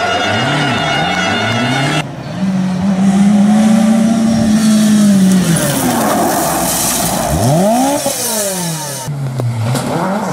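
Historic rally car engines at high revs, the pitch climbing and dropping sharply with throttle and gear changes. The sound switches abruptly about two seconds in and again near the end as different cars take over. The longest stretch is a Lancia 037.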